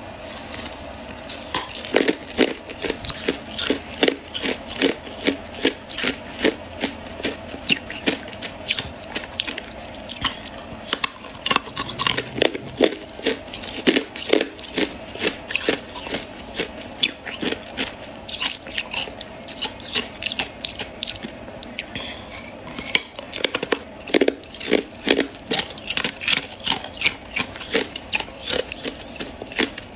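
Hard clear ice being bitten and chewed: a rapid, irregular run of sharp cracks and crunches, a few a second, with a couple of short pauses.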